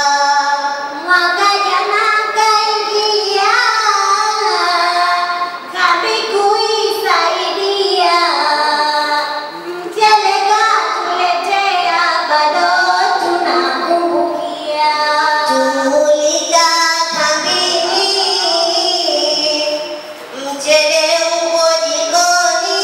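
Young girls' voices chanting a Swahili utenzi, a sung verse poem, in a melodic line. The phrases are broken by short pauses, about 6, 10 and 20 seconds in.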